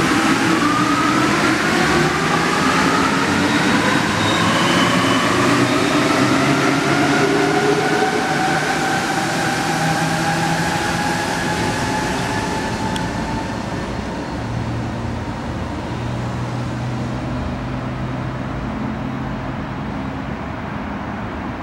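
Alstom NS-16 rubber-tyred metro train pulling out of the station and accelerating away, its drive giving a whine that rises in pitch over the first dozen seconds. The running noise then fades and dulls as the train recedes, leaving a steady low hum.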